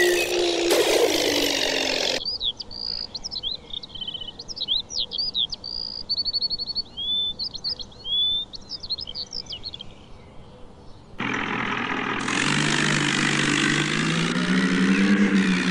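A vehicle engine sound cuts off abruptly about two seconds in. Birds then chirp and trill for about nine seconds before the engine sound starts again abruptly, its pitch rising and then settling.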